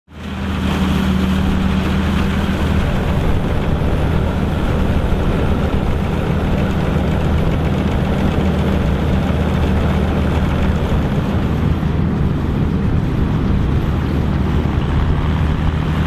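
Volvo BM ST257 combine harvester running as it threshes barley: a steady, unchanging engine drone with a continuous noisy rush of machinery over it, fading in at the start.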